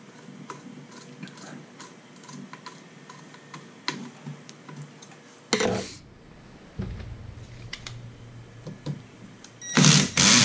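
Light clicking and rattling of wires and small metal parts being handled inside a toaster oven's sheet-metal case, with a louder scrape about halfway through and a couple of louder knocks near the end.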